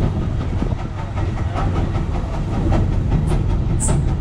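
Case 150 hp steam road traction engine running at about 190 RPM under heavy Prony-brake load, its exhaust barking in quick, steady beats. A few sharp ticks sound near the end.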